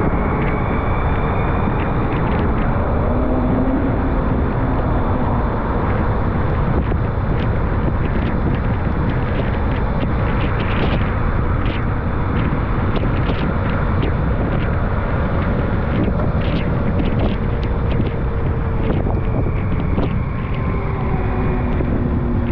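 Car driving on a rainy day: steady, loud road and tyre noise with a faint drifting engine drone and scattered short ticks.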